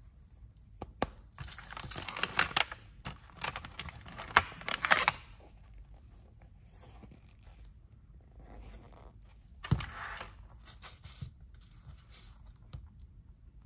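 Thin clear plastic packaging crinkling as it is handled, in a dense, crackly stretch for several seconds, then a shorter burst later, with scattered light clicks.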